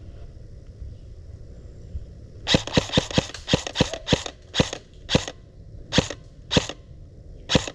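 Airsoft gun fired in single shots: about fourteen sharp cracks, the first several in quick succession a couple of seconds in, then slowing to roughly one a second.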